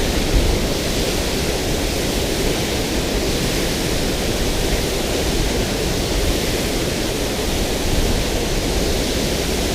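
Steady rush of water pouring through a dam spillway, an even, unbroken noise.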